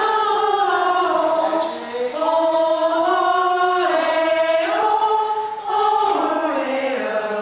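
Small community choir of women singing together in long held notes that move in steps, with short breaks about two seconds in and again near six seconds.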